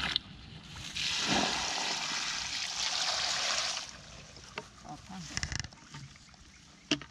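Water splashing and sloshing for about three seconds, then quieter, with a few small splashes and clicks.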